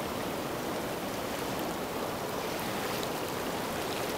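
Steady rushing of a fast-flowing river current, a continuous even water noise.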